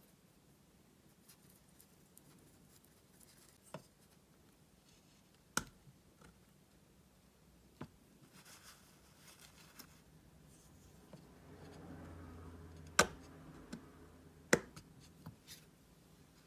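Quiet handling of a metal watercolour paint tin: a brush working the paint pans with faint scratching, broken by a few sharp clicks and taps, the two loudest close together near the end.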